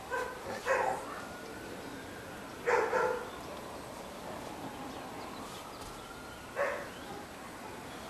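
A dog barking in short single barks spaced irregularly, a few seconds apart.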